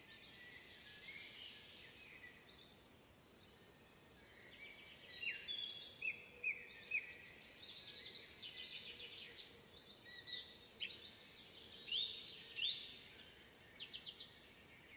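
Several songbirds singing in a spring forest: short chirps and quick trills, sparse at first and then denser from about a third of the way in, over a faint steady background hiss.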